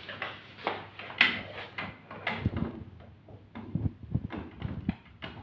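Irregular clicks and knocks from hand work on a chair under repair, the sharpest about a second in, with duller thumps in the second half.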